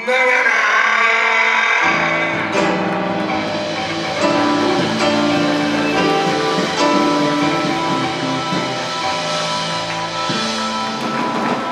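Live band playing: keyboards, electric bass guitar and drum kit. The low bass line comes in about two seconds in.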